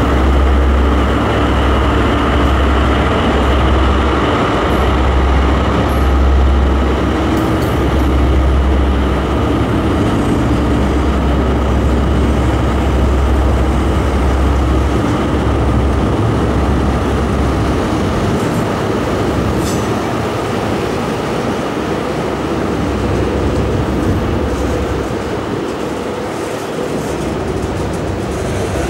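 Diesel freight train pulling away past the listener. The low engine hum of its two locomotives fades out about halfway through, leaving the steady rolling of the wagons on the rails with a faint wheel squeal.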